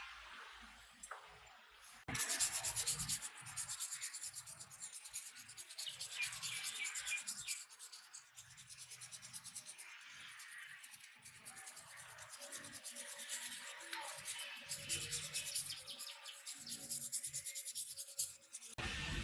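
Hand sanding: a long run of fast, rough rubbing strokes that starts suddenly about two seconds in, pauses briefly now and then, and stops near the end.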